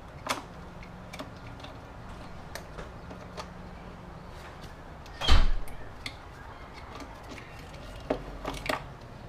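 Scattered clicks and knocks of hands and a socket extension working at the engine's spark plug wells, metal tool against the plastic engine cover and fittings. One loud thump comes about five seconds in, and a quick run of clicks near the end.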